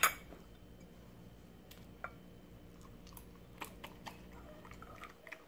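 A dog chewing and biting papaya off a spoon: faint, scattered clicks and smacks, after a brief louder sound right at the start.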